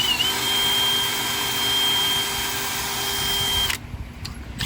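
A shop tool, air-powered or electric, running flat out for about three and a half seconds: a loud steady hiss with a high steady whine, cutting off abruptly.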